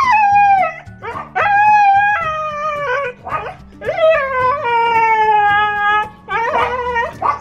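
Siberian husky puppy howling in a string of drawn-out calls, most sliding down in pitch, the longest about two seconds in the middle, followed by a couple of shorter, rougher yelps near the end.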